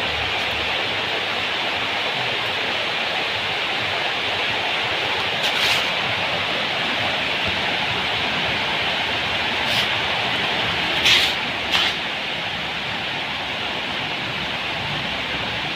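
Diesel engine converted to petrol with a carburettor and CDI ignition, running steadily as an even, hissy noise, with a few brief louder bursts about halfway through and again near two thirds of the way.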